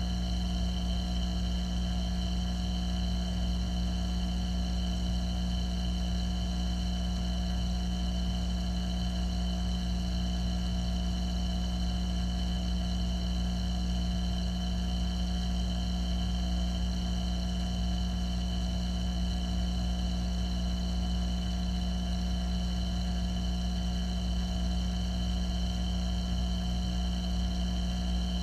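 Steady, unchanging hum of a saltwater reef aquarium's water pumps, heard through the water, with a deep drone and several held tones above it.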